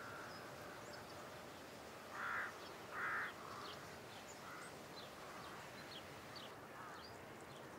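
Faint outdoor ambience in which a crow caws twice, about two and three seconds in, while small birds give a few brief high chirps.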